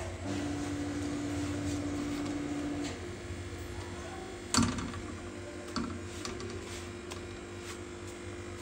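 Kitchen utensils handling flatbread on a flat iron tawa: a sharp knock about four and a half seconds in and a softer one a second later as the spatula and tongs hit the griddle. Under it is a low steady hum, with a steady mid-pitched tone for the first three seconds.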